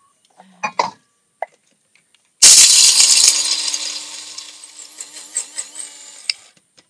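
Electric blade coffee grinder grinding toasted sunflower seeds: a few clicks as the seeds go in and the lid goes on, then about two and a half seconds in the motor starts with a loud whirring grind over a steady hum, loud at first and growing quieter over about four seconds before it stops near the end.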